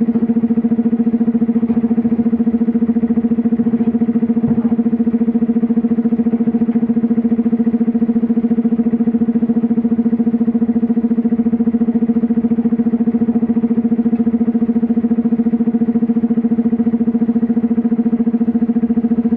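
Komatsu PC210LC-10M0 hydraulic excavator running at a steady engine speed: a constant, unchanging hum.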